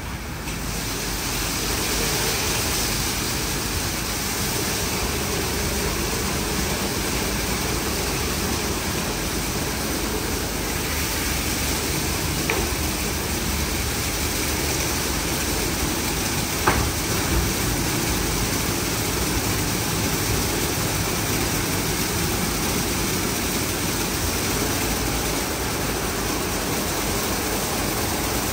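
WashTec SoftCare2 Pro rollover car wash running its cycle: a steady rush of water and machinery that swells just after the start, with two short knocks partway through.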